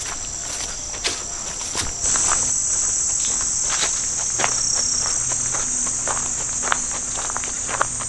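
Steady high-pitched chorus of singing insects, which grows louder about two seconds in, with the hiker's footsteps on the dirt trail scattered through it.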